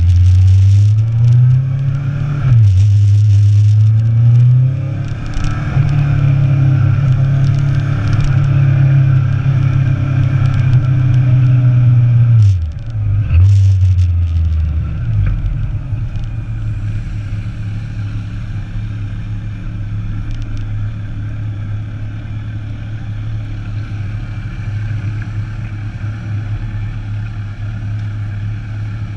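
Motorcycle engine accelerating: its pitch climbs, drops at a gear change about two and a half seconds in, climbs again and holds, then falls off just before the middle. For the second half it runs steadily at lower revs with wind rush.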